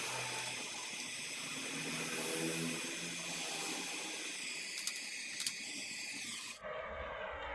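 Oxy-acetylene torch flame hissing steadily as it melts aluminium scrap in a crucible, with two sharp clicks about five seconds in. Near the end the hiss is replaced suddenly by a duller sound.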